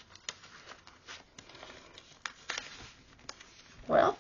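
Paper rustling and scraping in small, irregular ticks as cards are worked out of a tight paper pocket made from a book page.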